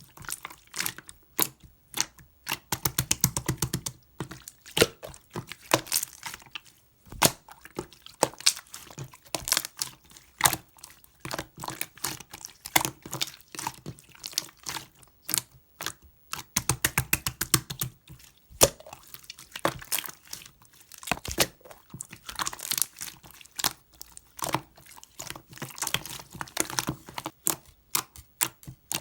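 Hands squishing, poking and folding slime, making rapid runs of small wet clicks, crackles and pops as air pockets burst, in bursts with short pauses between them.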